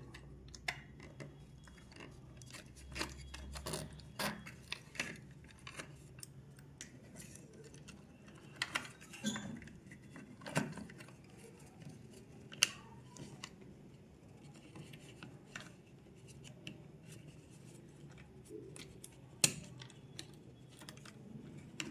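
Scattered small clicks and taps of hands fitting circuit boards, a small stepper motor and a worm gear into a plastic clock housing, with quiet stretches between; one sharper click comes about halfway through and another near the end.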